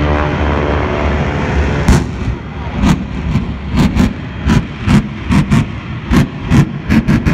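Aircraft engines droning as two planes pass low, the pitch falling, then from about two seconds in a quick, irregular string of over a dozen sharp bangs from airshow pyrotechnic charges.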